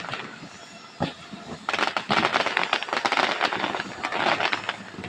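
Fireworks going off: a single bang about a second in, then a dense crackle of many sharp pops for about three seconds that dies away near the end.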